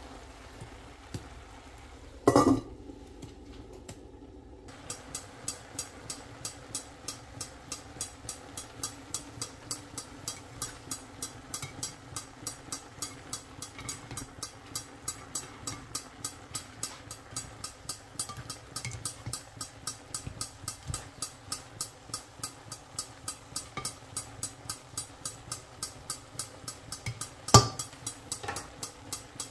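Stir-fry being stirred in a large stainless steel pan: a steady clicking and clinking of about four strokes a second, with a loud metal clank about two seconds in and another just before the end.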